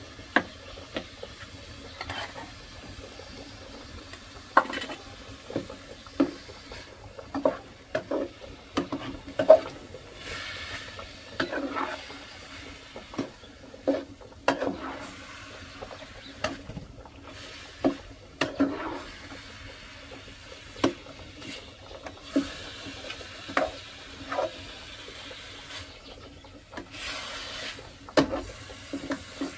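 Metal ladle stirring a stew of meat and vegetables in a metal pot over a wood fire, clinking and scraping against the pot in irregular strokes, over a steady hiss from the simmering pots.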